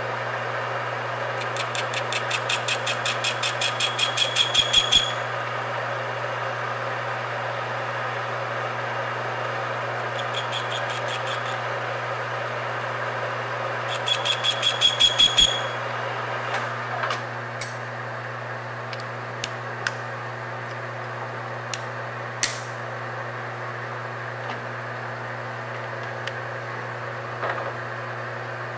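Metal lathe running with a steady hum while turning a cast flywheel. Three spells of rapid, even ticking, about seven a second, swell louder and then stop, and a few single clicks follow later.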